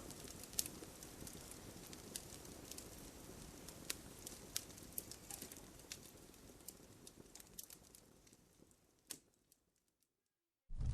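Faint crackling fire with scattered sharp pops over a soft hiss, fading away near the end into near silence. A much louder, different sound cuts in just at the end.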